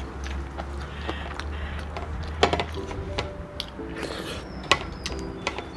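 Soft background music with short sustained notes, over which come sharp clicks and smacks of eating by hand: fingers picking at crisp fried tilapia and mouth sounds. The loudest clicks come about two and a half and nearly five seconds in.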